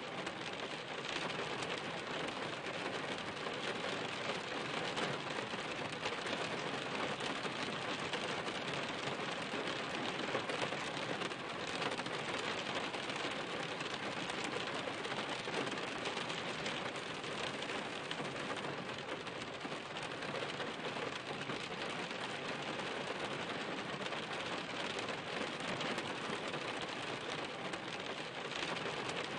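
Steady rain falling on a surface: an even, unbroken hiss of many drops.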